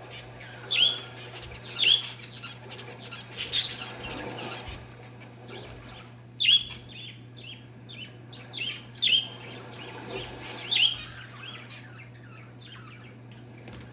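Parakeets and zebra finches chirping: short, sharp chirps come one every second or so, with a busier cluster about a third of the way in, over a steady low hum.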